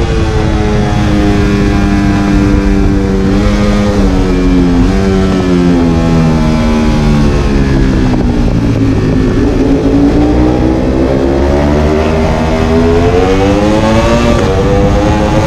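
Ducati Panigale V4 R's 998 cc V4 engine heard onboard at speed. Its note drops in steps as the rider brakes and downshifts from fourth to second. It stays low through the corner around the middle, then rises steadily as he accelerates out.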